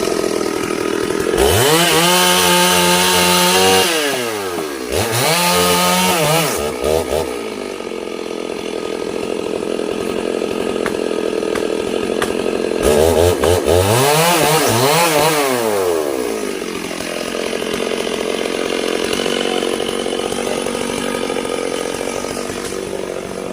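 Chainsaw running loudly, revved up hard three times for a couple of seconds each and easing back to a lower steady run in between.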